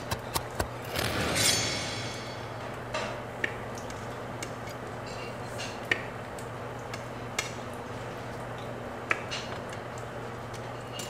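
Kitchen clatter of a knife, plates and pans: a louder rattling clatter about a second in, then scattered sharp clinks and taps of metal on crockery. A steady low hum runs underneath.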